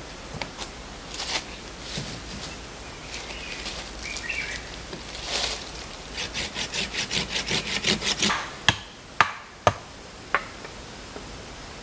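Rustling and light snapping in dry leaf litter, then a blade sawing fast back and forth across a fallen wooden log, about six strokes a second for two seconds or so, followed by three sharp wooden knocks about half a second apart.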